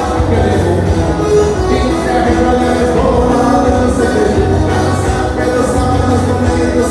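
A dance band playing live, with a voice singing over a full band and a strong bass line.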